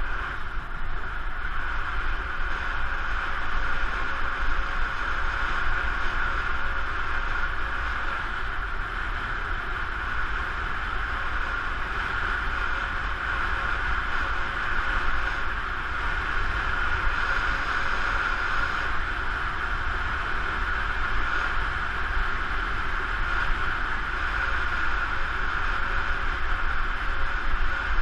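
Steady rush of wind and tyre noise from travelling fast on an asphalt road, with low wind rumble on the microphone.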